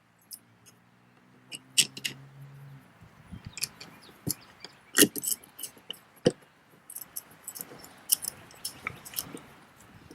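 Stainless steel bolts, raised washers and a spacer being handled and set into place on a plastic kayak deck: irregular sharp metal clicks and clinks, a dozen or so, the loudest about five seconds in.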